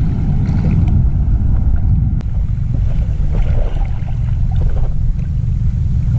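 Wind buffeting an action camera's microphone: a loud, steady low rumble.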